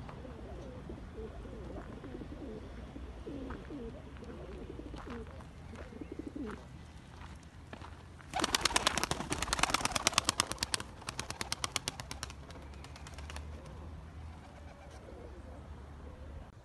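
Domestic pigeons cooing softly. From about eight seconds in comes a loud, rapid flutter of wing beats lasting about five seconds as pigeons take off.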